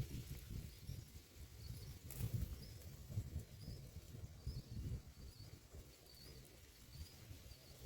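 Faint, thin, high bird chirps repeating about once a second over a low rumble, with a single click about two seconds in.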